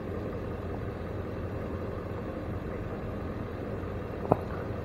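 A vehicle engine idling steadily with a low hum. A single short, sharp click about four seconds in.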